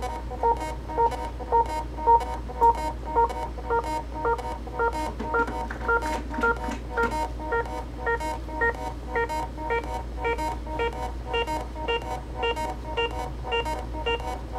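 Korg littleBits Synth Kit patch with sequencers playing a looping pattern of short electronic beeps. A higher line of notes climbs step by step in pitch partway through, over a low steady hum.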